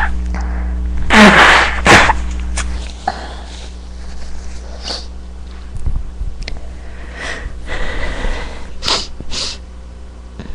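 A person sneezing once, loudly, about a second in, with a sharp short puff right after. A string of shorter, quieter sniffs follows through the rest.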